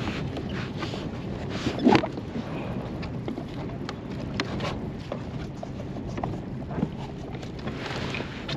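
Wind buffeting the microphone and water moving against a fishing kayak, with scattered light knocks and one louder knock about two seconds in.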